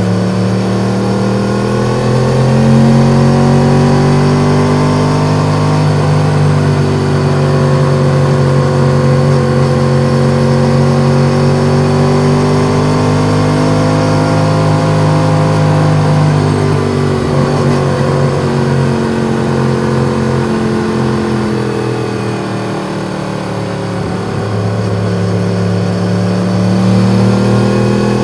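Yamaha MT-10's crossplane-crank inline-four motorcycle engine with an Akrapovic exhaust, under way. It pulls up through the revs over the first couple of seconds, then holds a steady note while cruising. It eases off about two-thirds of the way through and builds again near the end.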